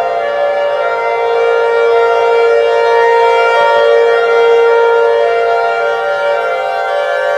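Emergency warning sirens sounding one long, steady wail at a nearly constant pitch, swelling slightly louder toward the middle.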